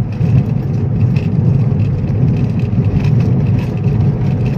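Steady engine and road rumble of a moving car, heard from inside the cabin.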